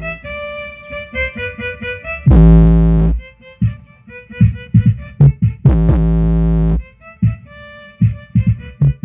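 Brazilian funk-style electronic music: a short-note synth melody punctuated by two deep bass notes, each lasting about a second, which are the loudest thing heard.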